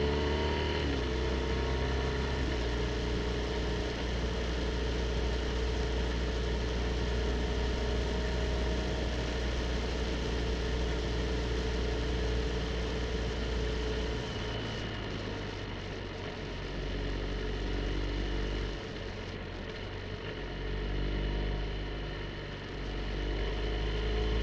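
BMW R1250 GSA's boxer-twin engine running on the move, with a steady rush of road noise. About halfway through the engine note drops and goes quieter as the throttle eases, then it picks up again near the end.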